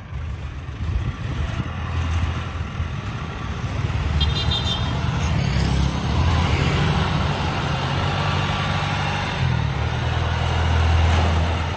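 Tracked rice-hauling carrier and rice combine harvester driving over a field edge, their engines running steadily and growing louder as the carrier comes closer. A brief high beep sounds about four seconds in.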